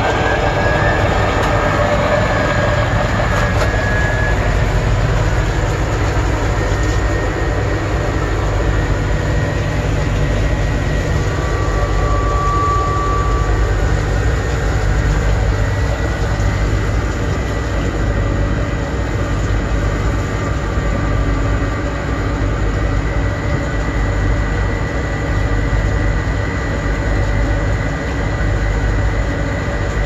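1960 Constructa K5 Type 63 front-loading washing machine running, its motor and drum giving a steady low hum and rumble with a faint high whine. A short higher tone sounds about twelve seconds in.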